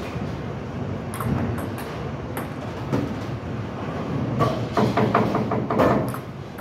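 Bowling alley sound: a steady rumble of balls rolling on the lanes and the pinsetter machinery running, with a run of clattering knocks about four to six seconds in.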